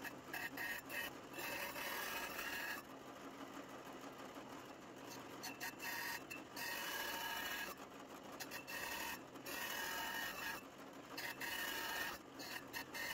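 Drill press spinning a hole saw of about 4 inches that cuts a series of slots into the side of a wooden block. The sound grows louder and higher about five times, in stretches of one to two seconds, as the saw bites the wood, and the drill press runs more quietly between cuts.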